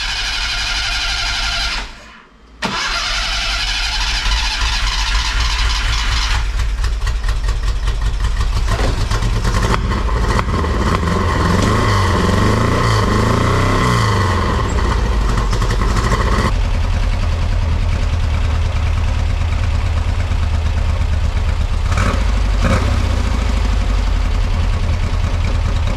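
Cold first start of a 1970 Porsche 914's air-cooled flat-four through a new custom stainless steel header and exhaust. The starter cranks, pauses briefly about two seconds in, and cranks again. The engine fires and runs, uneven at first, then settles into a steady idle in the second half.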